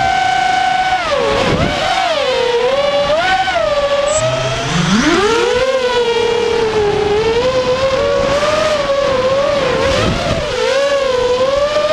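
Racing quadcopter's four Cobra 2206 2100KV brushless motors and propellers whining, the pitch swooping up and down as the throttle changes. About four seconds in the pitch drops very low and climbs quickly back up.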